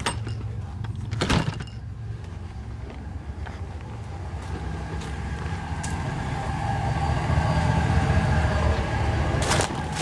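Pickup truck engine idling steadily, a low rumble that grows louder in the second half. A sharp knock sounds about a second in.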